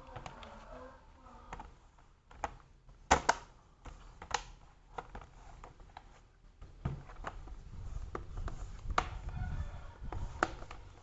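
Handling noise from a laptop being reassembled: scattered plastic clicks and taps, with a few sharper knocks about three seconds in and again near the end, and a low rumble of handling in between.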